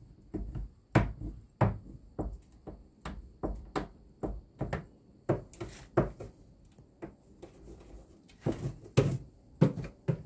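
Footsteps: a run of dull thuds and knocks, about one or two a second, with a short lull about three-quarters through.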